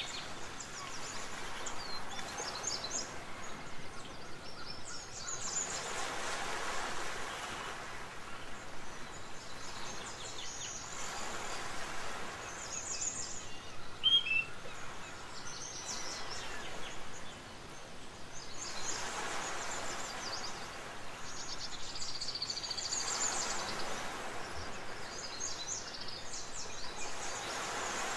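Birds chirping over a steady rushing ambience that swells every five or six seconds.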